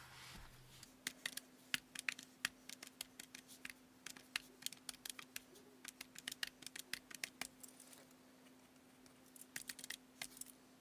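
Faint, rapid, irregular clicking of a Casio desktop calculator's keys being pressed, with a short pause about eight seconds in.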